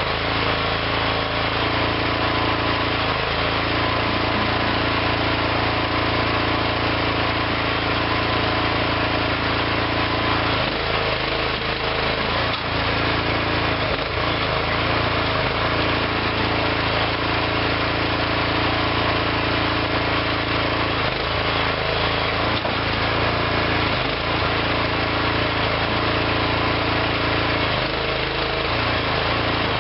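Engine of a small home-built hydraulic backhoe running steadily, its note changing briefly a few times.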